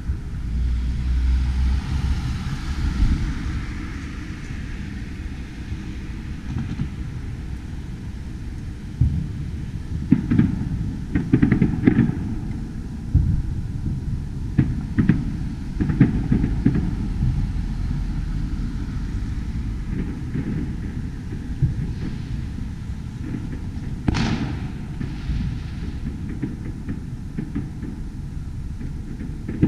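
Distant fireworks booming, a run of thuds about ten to seventeen seconds in and one sharper crack near the end, over a steady low rumble of city traffic.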